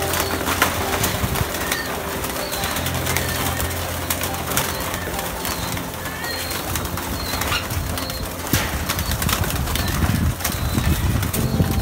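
Pigeons cooing and shuffling inside a wire-mesh loft, with scattered clicks and knocks from the feeding trays and mesh. From about eight seconds in, a rougher rustling sound of wings flapping grows.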